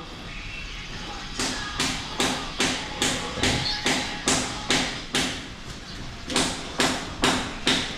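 Steady hammer blows, about two a second, each a sharp knock with a short ring; they begin about a second and a half in and pause briefly a little past the middle before going on.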